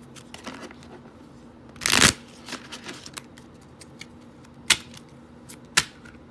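Tarot cards being shuffled and handled: a loud riffle about two seconds in, then two sharp snaps of cards near the end.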